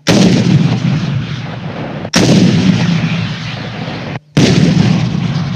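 Three heavy blasts about two seconds apart, each followed by a long rumbling decay: shoulder-fired rocket launchers being fired in turn and their rounds exploding on the target.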